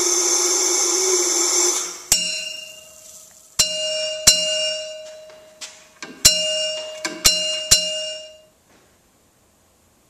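A steady rushing noise cuts off about two seconds in. Then comes a series of sharp metallic taps on a brass Lunkenheimer steam whistle, and after each one the bell rings with a clear tone that dies away over a second or two.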